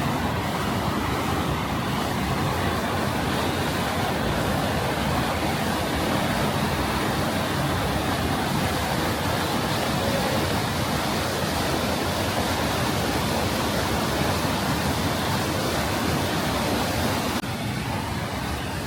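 Düden Waterfall's water rushing in a steady, dense hiss, dropping slightly in level near the end.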